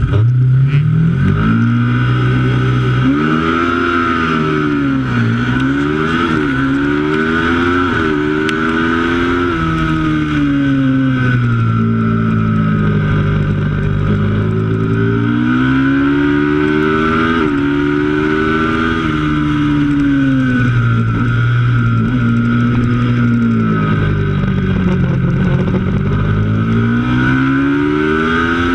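Twin-cylinder racing motorcycle engine at full race pace, its note climbing and falling over and over, with sudden drops at gear changes and dips where it is eased off for corners.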